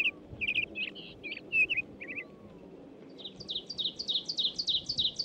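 American goldfinch singing: a few varied chirps and warbles, then, about three seconds in, a fast run of repeated high notes at about five a second.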